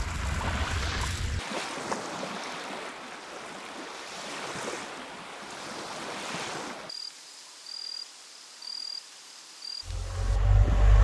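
Small sea waves washing onto a beach of coarse white coral fragments, a steady rushing hiss. The background music fades out in the first second or so and comes back loud near the end.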